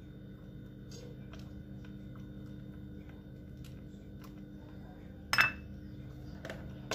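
A spoon scraping and tapping cream out of a cup into a stainless steel mixing bowl, with light clinks and a louder scrape about five seconds in, over a steady low hum.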